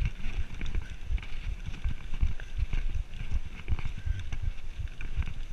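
Mountain bike rolling down a rough dirt singletrack: a continual run of irregular low thumps and rattles as the wheels and frame take the bumps and ruts.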